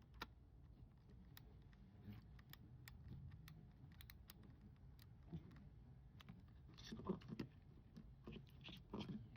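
Faint scattered clicks and ticks of a screwdriver turning the wire terminal screws on the back of a video doorbell camera, with a few louder clusters of clicks near the end.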